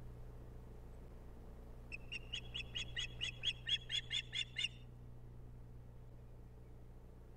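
Osprey calling: a quick series of about fifteen short, sharp whistled chirps, about five or six a second and growing louder, lasting nearly three seconds from about two seconds in.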